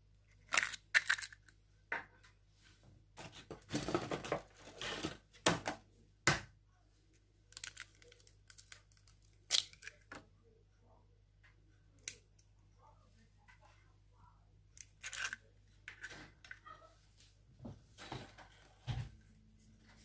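Egg being cracked by hand: sharp taps and cracks of the eggshell, with crackling as the shell halves are pulled apart, in scattered clusters.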